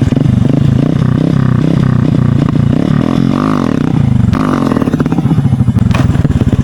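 Honda CB Shine's single-cylinder engine running through an aftermarket SC Project full-system exhaust, loud, with a fast pulsing exhaust note. Near the middle the revs rise and fall, and a little later the note changes abruptly.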